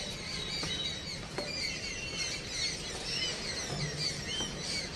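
Birds chirping: many short, high arching calls overlapping one another, with a few faint clicks in the first second or so.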